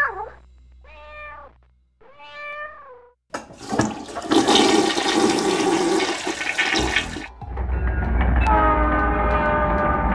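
A string of sound effects: a cat meowing twice, then a toilet flushing loudly for about four seconds, then a low rumble with a steady tone in it.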